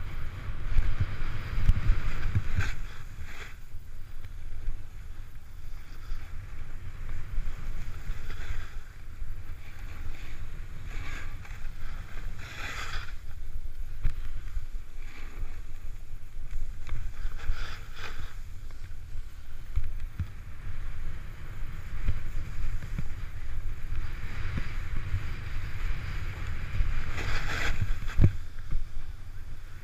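Snowboard run heard from a GoPro Hero 3: a steady low wind rumble on the microphone, with the board's edges scraping over snow in hissing surges that swell several times as it turns.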